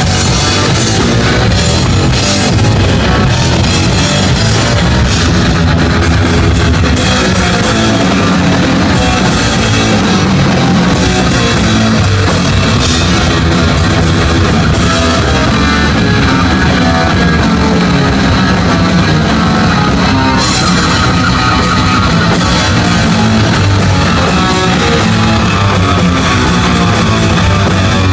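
Heavy metal drum kit played loud in a live drum solo, with constant cymbal hits over a heavy bass drum.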